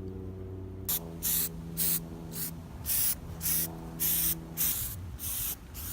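Aerosol can of rubberized undercoating spraying in about nine short hissing bursts, starting about a second in.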